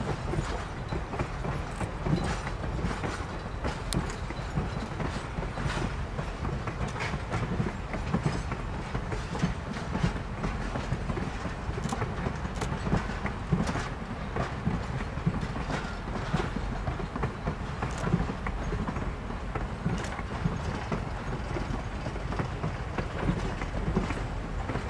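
Passenger coaches of an excursion train rolling past on a curve: a steady rumble from the wheels on the rails, with many sharp clicks.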